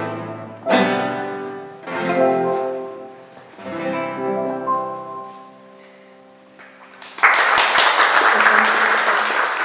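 Nylon-string classical guitar strumming the closing chords of a song, each chord ringing and dying away, the last fading out by about six seconds in. About seven seconds in, applause breaks out and carries on.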